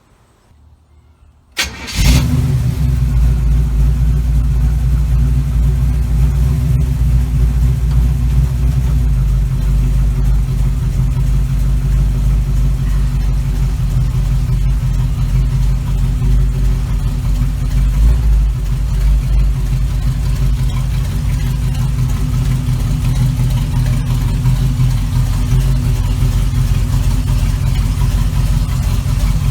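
Small-block Chevy 350 V8 starting about two seconds in, then running at a steady idle.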